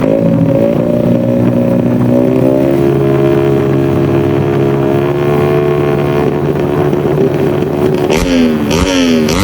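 Benelli TNT 135 motorcycle's single-cylinder engine running at a held, slowly rising speed for several seconds, then revved up and down in quick blips near the end.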